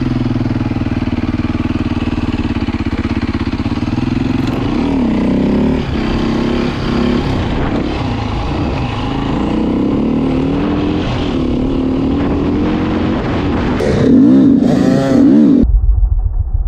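Dirt bike engine running while riding, its pitch rising and falling again and again with the throttle. Near the end the sound switches abruptly to a dull low rumble.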